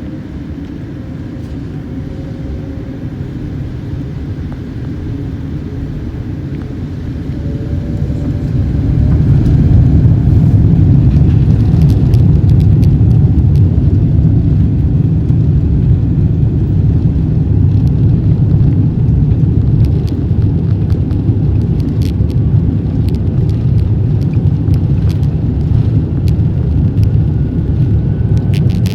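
Jet airliner cabin noise: a steady low rumble of engines and airflow that grows much louder about eight to ten seconds in and stays loud, with a faint rising whine and light rattles.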